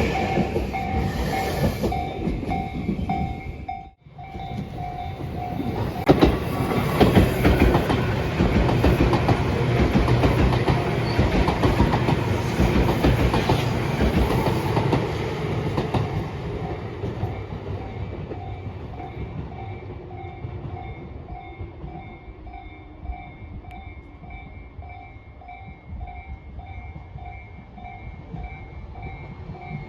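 Japanese level-crossing warning bell dinging about twice a second while a train passes over the crossing, loudest in the middle and fading toward the end. The sound drops out briefly about four seconds in.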